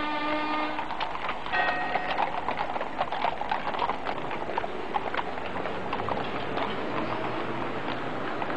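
A fast, irregular clatter of footfalls on hard ground. The tail of brass music dies away in the first second.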